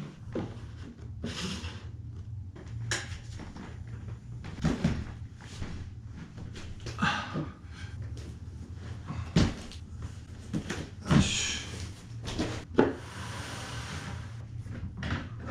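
Objects being handled on a table: irregular knocks, clicks and scraping, rustling noises, over a steady low hum.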